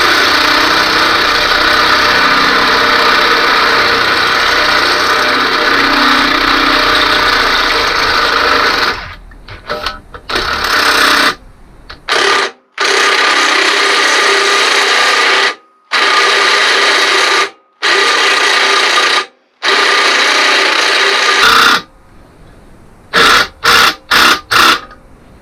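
Power drill with a step drill bit boring out a hole in a motorcycle mudguard to take a rivnut. It runs steadily for about nine seconds, then in a string of short stop-start bursts as the hole is opened up a little at a time, ending with four quick blips.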